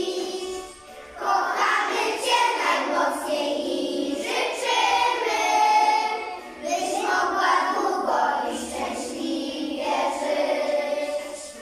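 A group of young children singing together, in phrases with short breaks about a second in and again about six seconds in.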